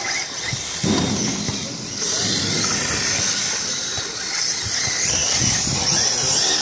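Radio-controlled drift cars running on concrete: motors whining up and down in pitch as they are throttled, over a steady hiss of tyres sliding on the surface.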